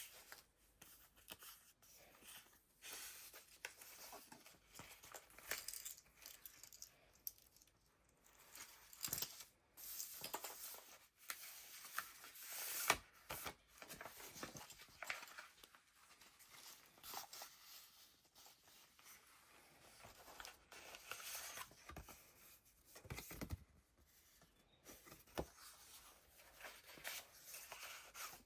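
Pages of a handmade junk journal turned by hand: thick, layered paper and ephemera rustling and crinkling, with short soft taps and clicks scattered throughout.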